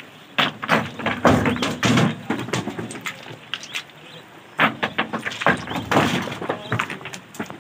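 River stones thrown by hand into the steel bed of a dump truck, landing with a rapid run of thuds and clatters. The impacts come in two bunches, about half a second in and again about five seconds in, with a lull between.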